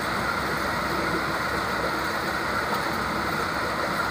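Steady rushing background noise at an even level, with no distinct knocks or clicks.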